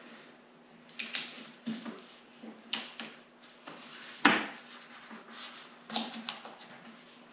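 Hands rubbing and pressing a paper template flat against a snowmobile's rear tunnel: irregular rustling and scraping of paper, with one sharp knock a little over four seconds in, the loudest sound.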